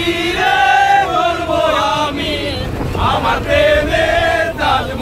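A group of men singing and chanting loudly together in unison, voices overlapping.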